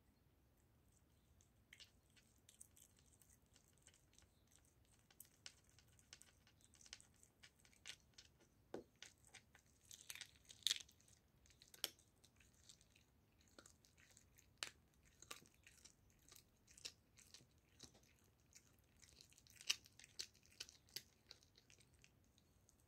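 A cat chewing and gnawing a raw goose neck: quiet, irregular wet crunches and clicks of teeth on meat and bone. They start about two seconds in, with a few louder crunches in the middle and near the end.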